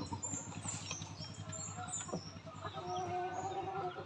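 Small birds chirping with many short, high calls over a low steady hum, with a faint drawn-out call about three seconds in.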